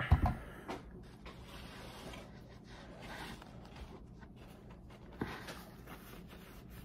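A thud as a large plastic water bottle is set down on the table, then soft rustling and handling noises, with one light knock about five seconds in.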